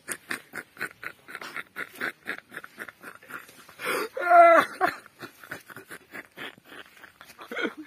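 A young man laughing hard behind his hand: a long run of quick breathy laugh pulses, about five a second, with one louder, higher-pitched voiced laugh about four seconds in.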